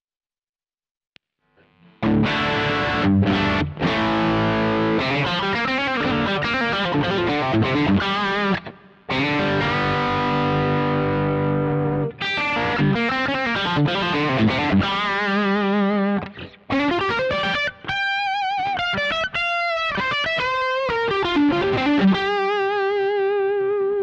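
Telecaster-style electric guitar with single-coil pickups played through overdrive, starting about two seconds in. It opens with chords, then moves to lead lines with string bends and vibrato. The tone is full rather than thin.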